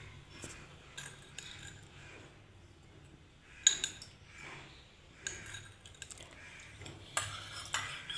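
Spoon clinking and tapping against a cup as honey is stirred into kahwa: scattered light clicks, with one sharper clink a little before the middle.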